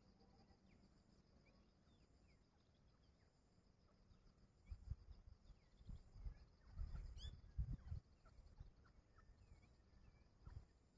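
Quiet grassland ambience: a steady faint high insect-like buzz and scattered faint chirps, with a cluster of low thuds and rumbles about halfway through and one brief rising chirp among them.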